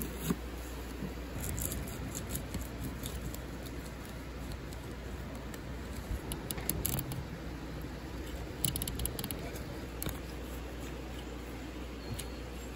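Knife cutting on a plastic cutting board, first through an onion and then through a rockfish: scattered small clicks, scrapes and squishy slicing sounds, a few short clusters, over a steady low rumble.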